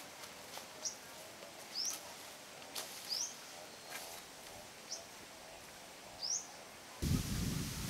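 A bird giving short, high, upward-sweeping chirps, five of them spaced about a second apart, over quiet rural background. Near the end a louder steady rushing noise cuts in abruptly.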